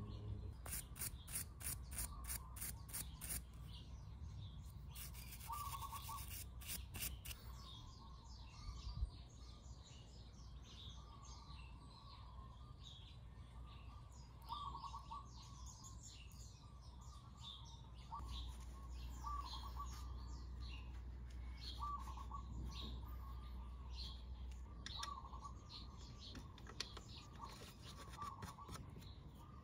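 Birds chirping in the background, short calls repeating every couple of seconds, over a low steady rumble. A quick run of sharp ticks comes in the first few seconds.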